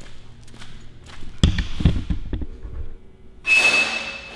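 A run of knocks and thuds, the loudest about a second and a half in, then a steady hiss with a thin whistling tone starting about three and a half seconds in.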